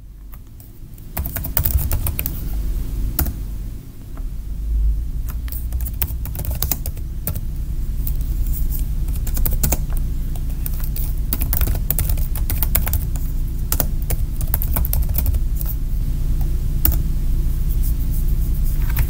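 Typing on a computer keyboard: irregular runs of key clicks as terminal commands are entered, over a steady low hum that comes up about a second in.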